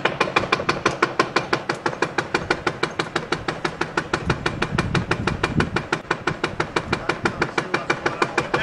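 A badly worn driveshaft U-joint knocking in a fast, even rhythm, about six or seven knocks a second, as the shaft turns, over a low engine rumble. The knocking is the sign of a failed universal joint.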